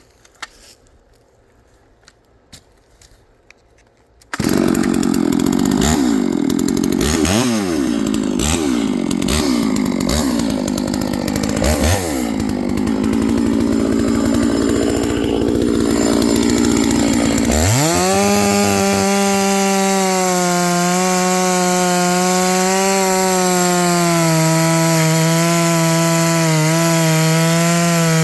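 Clone Stihl 660 two-stroke chainsaw comes in loud about four seconds in, revving up and down repeatedly. From about two-thirds of the way through it is held at full throttle at a steady pitch, cutting into dry elm.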